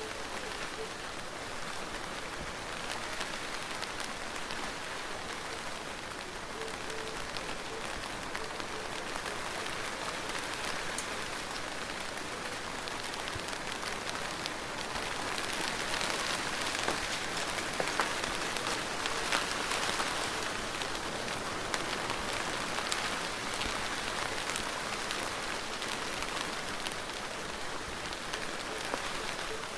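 Steady rain falling, an even hiss with many small drop ticks, growing somewhat heavier about halfway through and then easing slightly.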